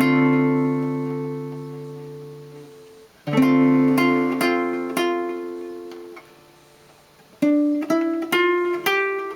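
Guitar played chord-melody style: a D minor 7 chord struck and left ringing for about three seconds, then a second chord with three melody notes picked over it. After a short pause, a quick run of single notes climbs upward.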